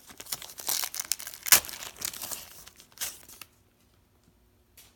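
A 1991 Pro Set hockey card pack's wrapper being torn open and crinkled by hand, a run of crackling rips for about three and a half seconds, then a lull with a single small click near the end.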